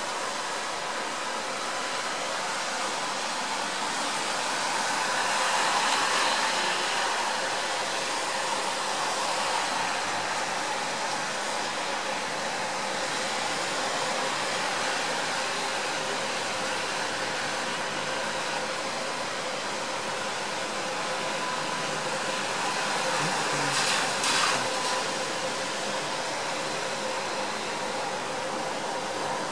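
Steady rain falling, an even hiss of water on pavement and roofs, with a slight swell about six seconds in and a few sharp taps late on.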